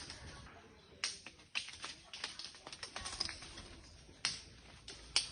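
Rubber tree seed pods bursting open to scatter their seeds: scattered sharp cracks and clicks at irregular intervals, with louder snaps about a second in, a little past four seconds and near the end.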